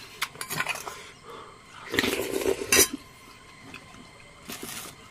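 Metal spoon clinking and scraping in a metal bowl of instant noodles: a few light clinks, a longer scrape about two seconds in that ends in a loud clink, then a couple more clinks near the end.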